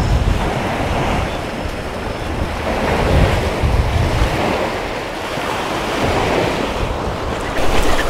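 Wind gusting across the microphone, rumbling as it rises and falls, over the steady wash of sea waves.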